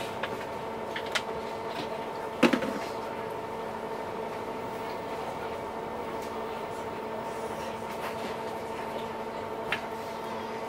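Express passenger boat's engines droning steadily, with a sharp knock about two and a half seconds in and a faint click near the end.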